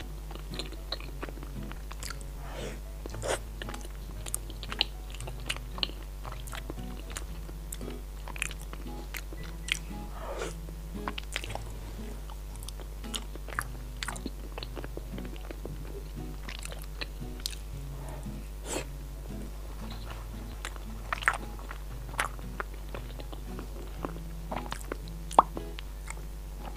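Close-miked biting and chewing of a chocolate lava cake, with scattered sharp mouth clicks and smacks, over quiet background music.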